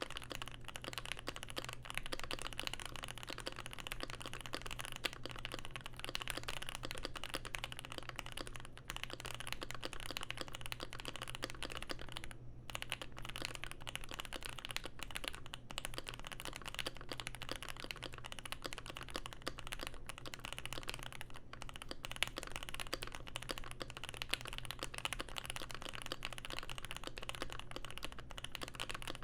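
Steady typing on a modded Keychron Q1 mechanical keyboard with an aluminium plate, lubed and filmed Pinoko switches and GMK keycaps, damped inside with a tape mod, Poly-Fil and PE foam. The key clicks run on with short pauses about twelve seconds in and again about twenty-one seconds in.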